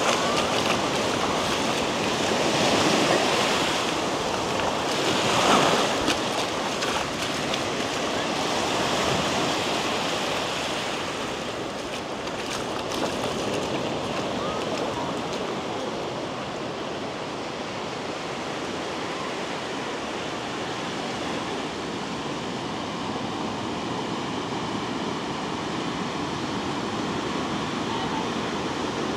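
Ocean surf breaking and washing up a sandy beach, a steady rushing wash with two louder swells in the first six seconds.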